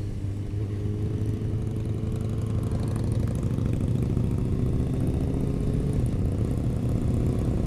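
Motorcycle engine running steadily while riding in traffic, picked up by a helmet-mounted action camera's microphone. Its pitch sags a little over the first couple of seconds, then holds steady.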